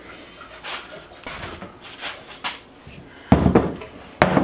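Rustling and scraping of handling noise, then a heavy thud about three seconds in and a second knock near the end as the Comgrow Robo 3018 CNC's metal T-slot base is set down on a wooden workbench.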